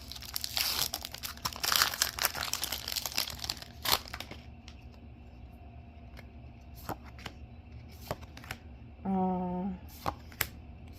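Foil booster-pack wrapper crinkling and being torn open for the first few seconds, then a few light clicks and taps as the cards are handled. A brief hummed "mm" from a voice comes near the end.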